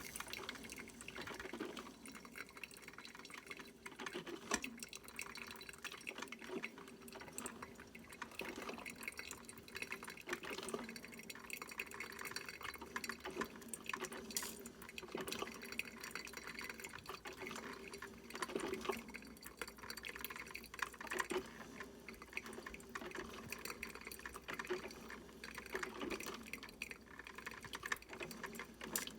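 A 5-cup Mr. Coffee drip coffee maker brewing. Hot water spurts and drips irregularly, every second or two.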